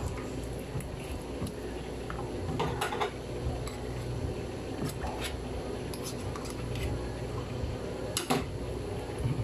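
Silicone spatula pressing and scraping soft homemade butter on a wooden board to work out the leftover milk, with a few sharp taps about three seconds in and a louder knock past eight seconds, over a steady low hum.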